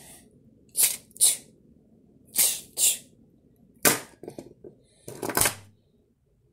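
A child making hissing 'pssh' fight sound effects with his mouth while playing with action figures: about seven short bursts over five seconds, then a pause.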